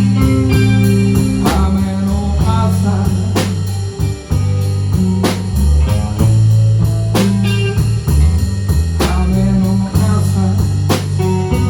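Live band playing a slow blues instrumental passage: guitar lines over a walking bass and drum kit, with regular drum strokes.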